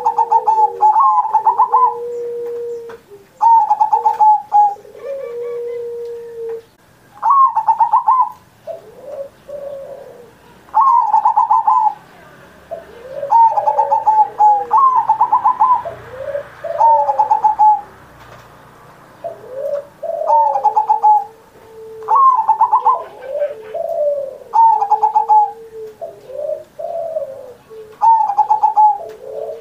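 Zebra dove (perkutut) cooing in full song: repeated phrases of rapid, rippling coos, one every second or two, some notes pitched lower and held longer.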